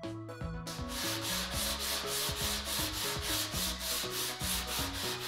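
Sandpaper rubbed by hand back and forth along the edge of a wooden table top, starting about a second in and going on in quick, even strokes, about five a second.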